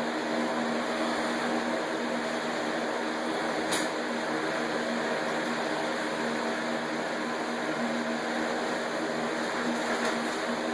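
Electric fan set in the front doorway to pull fumes out, running with a steady hum. A single brief click about four seconds in.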